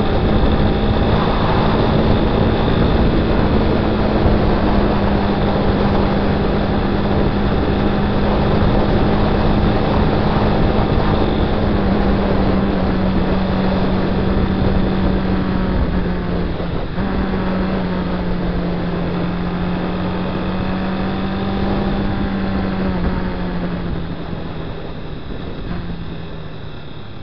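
Honda Twister 250's single-cylinder four-stroke engine running at a steady cruising speed, heard from on the motorcycle with wind rushing past. The engine note dips briefly about two-thirds of the way through, and the sound eases off near the end.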